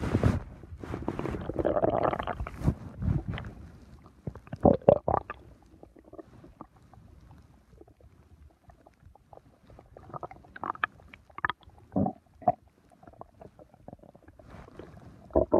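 A person's stomach gurgling: irregular rumbles and short squelching pops. There is a long gurgle in the first few seconds, a quieter stretch in the middle, and a run of short pops later on.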